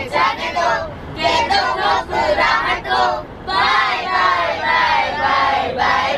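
A girl singing a song in Hindi, sustained sung phrases with short breaths between them, over the low steady hum of the moving limousine.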